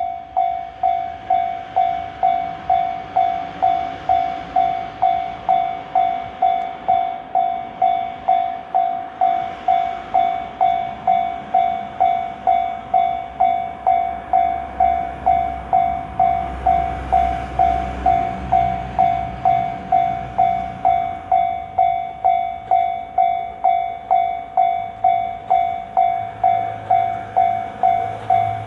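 Japanese level crossing warning bell ringing steadily, a little under two dings a second. Partway through, a JR Kyushu YC1 series hybrid diesel railcar passes the crossing, and its low engine rumble and wheel noise swell under the bell for several seconds.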